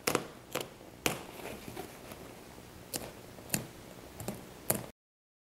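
Stitching threads of a car seat cover seam snipped with a razor blade and popping as the fabric is pulled apart: a string of small sharp ticks, about seven, at uneven intervals. The sound cuts off suddenly near the end.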